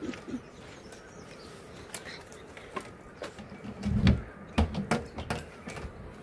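Outdoor ambience with faint bird calls, broken by scattered sharp clicks and a few dull thumps about four to five seconds in.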